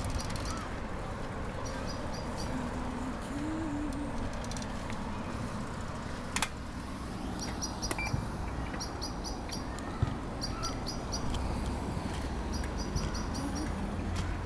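Steady low rumble of wind and tyres while riding a bicycle, with a bird chirping in short quick runs of three or four high notes every second or two. There is a single sharp click about six and a half seconds in.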